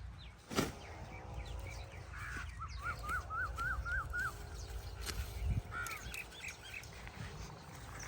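Birds calling, with a run of about seven quick repeated calls in the middle and scattered chirps later, over a steady low rumble; a single sharp knock comes about half a second in.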